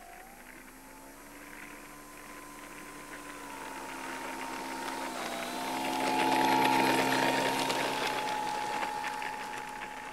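Brushless electric motor and propeller of a Multiplex Mentor RC plane (Himax C 3528-1000 outrunner) whining steadily as it taxis, the pitch dipping briefly twice. The whine grows louder as the plane rolls close past about six seconds in, then eases off.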